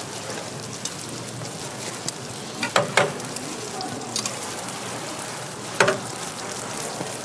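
Sweet millet pancakes frying in oil on a flat griddle, a steady sizzle. It is broken by sharp knocks: two close together about three seconds in and one near six seconds, from the metal pancake press and utensils on the griddle.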